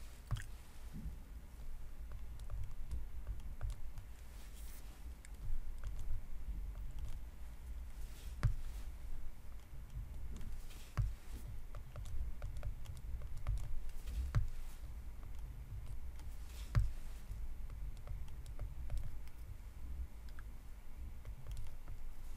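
Stylus tapping and scratching on a tablet screen while handwriting equations: irregular light clicks over a low steady rumble.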